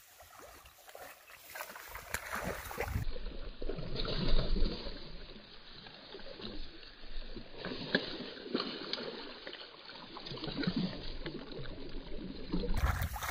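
A hooked fish thrashing and splashing in shallow, weedy water at the bank as it is hauled in on a pole and line. The splashing comes in uneven bouts and is loudest about four seconds in.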